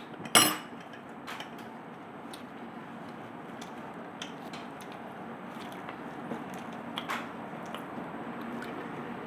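Eating at a table: a steel spoon clinks sharply against a ceramic bowl just after the start, then soft scattered clicks and handling noises of hands tearing puri and eating, over a steady background hiss.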